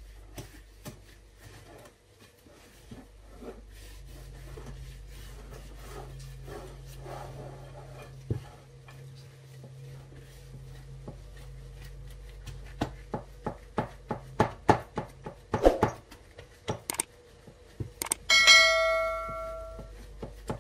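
Mashed potato dough being mixed and pressed by a gloved hand in a glass bowl: soft rubbing, then a quick run of light knocks against the bowl. About two-thirds of the way in, a bell-like notification ding from a subscribe-button sound effect rings out and fades over about two seconds, the loudest sound here.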